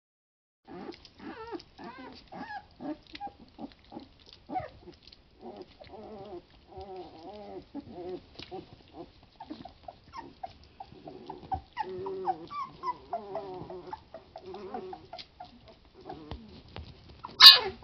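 Three-week-old puppies whimpering and grunting in many short, repeated cries, mixed with small wet clicks as they eat mush. One sudden, much louder squeal near the end.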